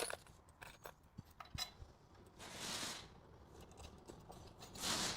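Scattered light metallic clicks and taps of bolts, washers and nuts being handled and fitted while a steel front bumper's cradle and recovery points are bolted on, with two short rushes of rustling noise, one in the middle and one near the end.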